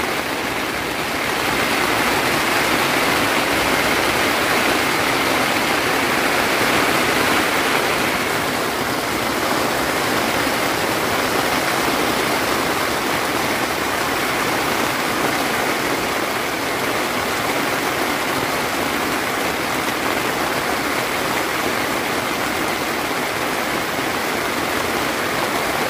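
Steady rain pouring down, an even loud hiss that swells a little after the first couple of seconds.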